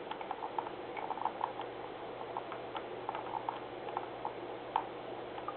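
Computer mouse scroll wheel clicking as a page is scrolled: irregular runs of light ticks, several close together, over a steady faint hiss and a low hum.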